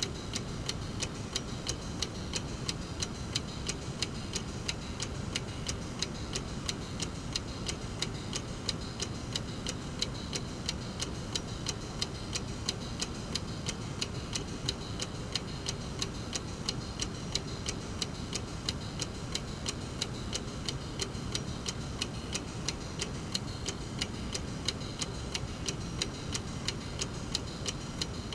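Mechanical clock movement ticking: the brass escapement gives an even, regular tick several times a second over a steady low background hum.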